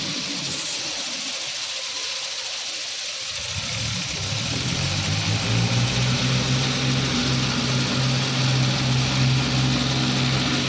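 Farm tractor engine running. It fades for a couple of seconds, then comes back stronger from about four seconds in and holds a steady hum.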